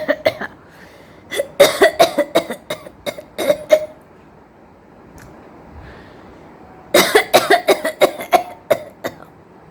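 A woman coughing on purpose in rapid runs of several coughs a second: a short run ending just after the start, a long run of about ten coughs from about a second in, then a pause of about three seconds, then another long run near the end. These are put-on coughs for show, not from illness.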